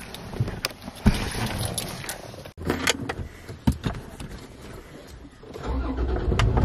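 Scattered clicks and knocks, as of car doors and keys being handled. Near the end a steady low rumble of a car engine comes in and keeps running.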